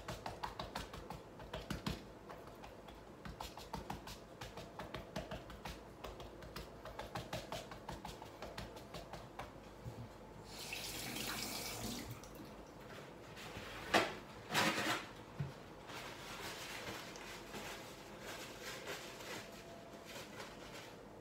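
Light tapping and clicking of kitchen work, then a tap runs briefly about ten seconds in, followed by two sharp knocks.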